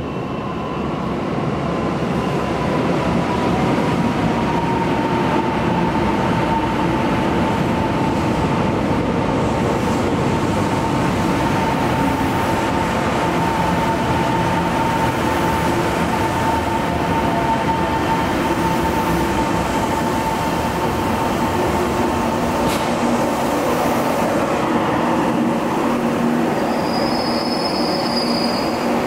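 A Taiwan Railways commuter electric multiple unit pulls into the platform and slows, its wheels and running gear giving a loud, steady rumble. A high whine over the rumble sinks slowly in pitch as the train brakes and fades out near the end, where a brief, higher squeal follows.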